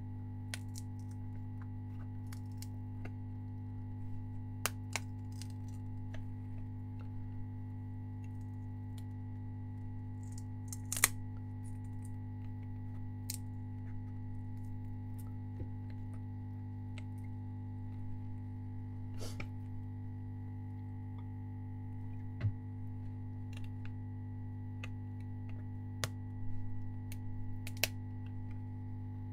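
Scattered light clicks and taps of plastic as the glued E-Ink screen is worked loose from the PocketBook 614's plastic frame by hand, the sharpest about eleven seconds in, over a steady low electrical hum.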